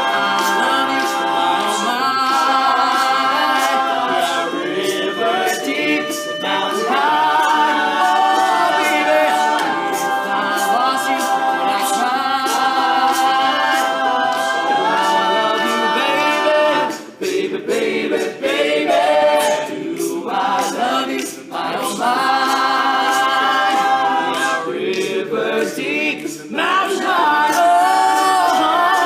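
Male a cappella group singing in close harmony, with vocal percussion clicking steadily under the chords. The singing briefly drops out a couple of times about two-thirds of the way through.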